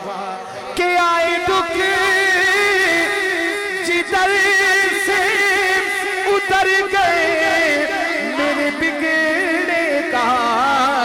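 A man singing a naat into a microphone: a long, ornamented melodic line with a wavering vibrato and no clear words.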